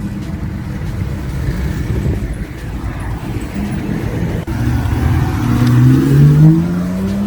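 Modified car's engine running with a low rumble, then accelerating from about five seconds in, its note rising steadily and loudest near the end.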